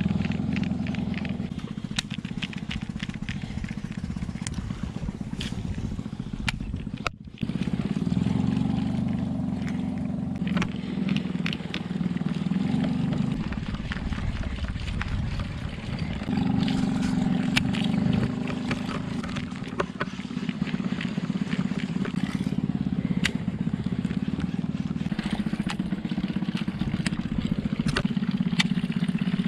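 Small boat engine running steadily as the boat moves along, with a brief drop about seven seconds in.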